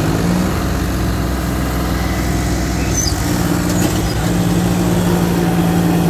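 John Deere tractor's diesel engine revving up and held at high revs under load as it pulls a combine harvester stuck in deep mud. Its pitch shifts slightly about three seconds in.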